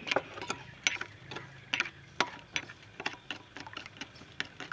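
Metal spoon stirring a runny sauce in a glass bowl, clinking against the glass in irregular sharp clicks, several a second.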